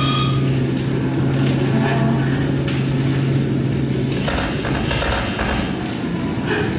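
Dark electronic soundscape from a performance sound installation: a dense low rumble under a steady low hum. The hum stops about four seconds in, giving way to surges of rushing, hissing noise.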